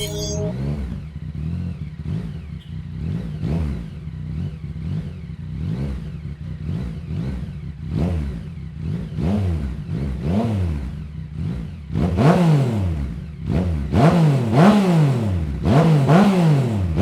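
Yamaha XSR900's inline-three engine through a Two Brothers Racing full-system exhaust, revved repeatedly in short throttle blips, each climbing and dropping back. Over the last five seconds the blips get louder and come faster, about one and a half a second.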